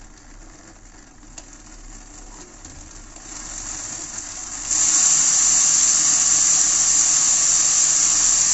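Small DC motors of a homemade model radial engine running a propeller: a low steady hum that grows louder, then from about halfway through a much louder, even hissing whir.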